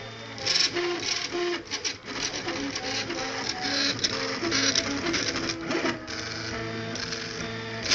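Prusa Mendel RepRap 3D printer printing: its stepper motors whine in short notes that jump from pitch to pitch as the extruder carriage moves back and forth. Bursts of higher mechanical hiss and a steady low hum run under the notes.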